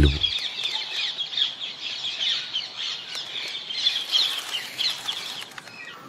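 Many wild birds calling at once: a dense stream of short, overlapping high chirps that grows fainter near the end.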